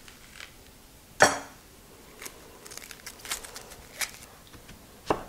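An onion being peeled by hand with a kitchen knife over a wooden cutting board: light crackles of dry onion skin, with a sharp knock about a second in and another near the end.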